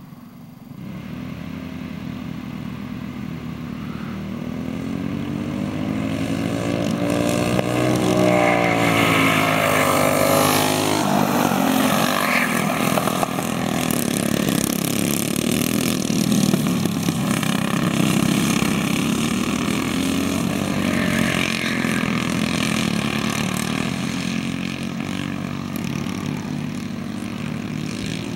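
Briggs & Stratton Animal kart engines, small four-stroke singles, running as karts lap past. The engine note builds from about a second in, is loudest in the middle with the pitch rising and then dropping as they come off the throttle and accelerate through the turn, and fades slowly near the end.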